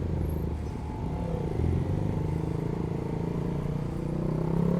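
Honda CB150R's single-cylinder engine running on the move in traffic, its pitch rising twice as the bike accelerates, about a second in and again near the end.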